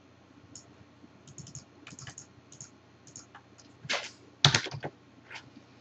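Computer keyboard typing: irregular, scattered key taps, with a louder run of keystrokes about four to five seconds in.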